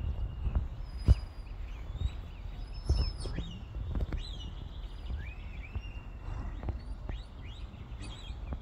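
Shepherd's whistle commands to a working sheepdog: a series of short, high whistled calls, some rising and some falling in pitch, over a low rumble.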